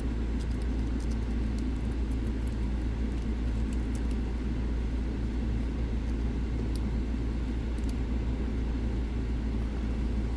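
A steady low hum runs throughout. Over it come faint, scattered light metallic clicks of a pick working inside a dimple lock from the back.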